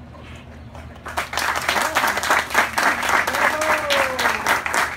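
Audience applause breaking out suddenly about a second in and carrying on as dense clapping, with a voice calling out over it partway through.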